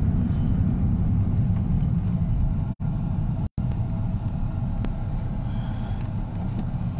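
A car's engine and road noise heard from inside the cabin while driving: a steady low rumble. The audio cuts out for a split second twice near the middle.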